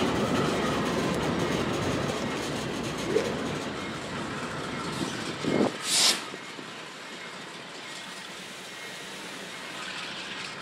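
Norfolk Southern train of loaded flatcars rolling along the rails, its wheel and rail noise slowly fading as it moves away. A little past halfway there are two short, louder noises close together, the second a sharp hiss-like burst, and after them the sound is quieter.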